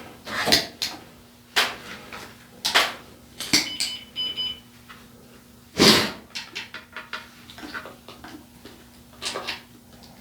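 A series of sharp knocks and clacks, the loudest about six seconds in, with a short high electronic beep about four seconds in, over a faint steady hum.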